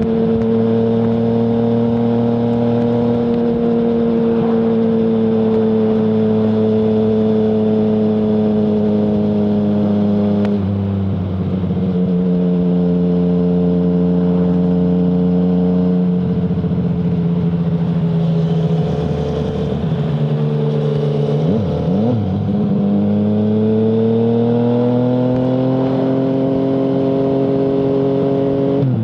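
Yamaha MT-09's 847 cc three-cylinder engine through an Akrapovic full-system exhaust with no dB killer, heard from the rider's seat while riding. It runs steadily, its pitch steps down after about ten seconds and again around sixteen seconds, blips quickly a couple of times around twenty-one seconds, then climbs steadily under acceleration until a gear change near the end.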